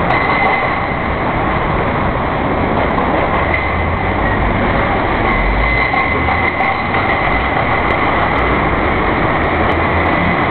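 Steady engine and road noise of a moving vehicle.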